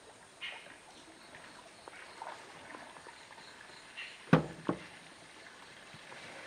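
Faint water sounds around an Asian elephant wading and drinking, its trunk drawing water and lifting it to its mouth, with a few scattered chirps. About four seconds in come two sharp knocks or slaps, about half a second apart, and these are the loudest sounds.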